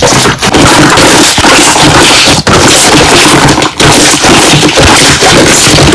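Slime being squeezed and pressed so the air bubbles trapped in it pop, making a loud, dense run of crackling snaps with a few short breaks.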